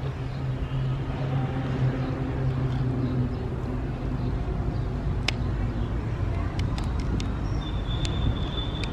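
Steady outdoor traffic noise, with a low engine hum through the first three seconds. In the second half come a few small sharp clicks of a metal screw and washers being handled on a PVC pipe.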